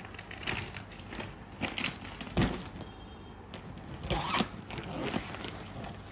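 Rustling and crinkling of stiff brocade silk fabric being handled and shifted about, in scattered short rustles, with one louder soft knock about two and a half seconds in.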